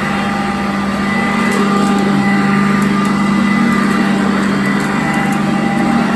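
Sanitaire upright vacuum cleaner running steadily: a constant motor hum with a thin high whine over a rush of air, and a few faint clicks.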